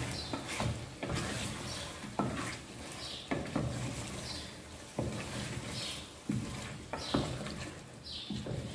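A spoon stirring ground spices into a curry in a cooking pot, with irregular knocks and scrapes of the spoon against the pot.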